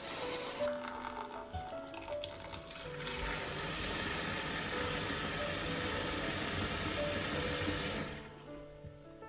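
Water running from a tap into a sink. The flow gets stronger about three and a half seconds in and shuts off suddenly about eight seconds in.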